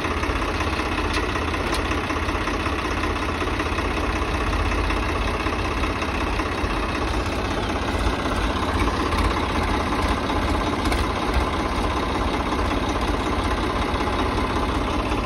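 Swaraj 855 tractor's three-cylinder diesel engine running steadily at idle, heard close to the engine bay.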